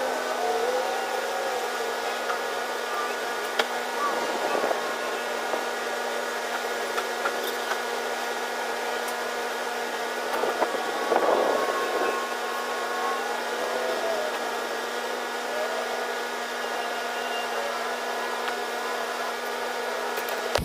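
A steady drone of several held tones, with a few faint whistles that rise and fall and some light clicks over it.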